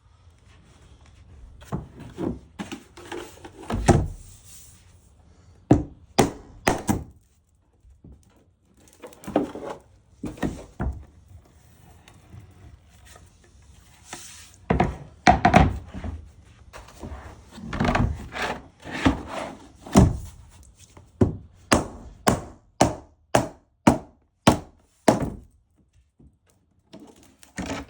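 Wooden knocks, thunks and rubbing as olive wood and black epoxy castings are worked loose and popped out of their forms, with a run of about a dozen evenly spaced sharp knocks, roughly two a second, near the end.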